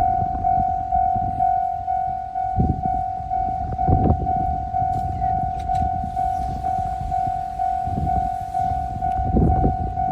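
Japanese railway level-crossing warning bell ringing on and on, a steady electronic ding repeating about twice a second, over a low rumbling noise that swells now and then.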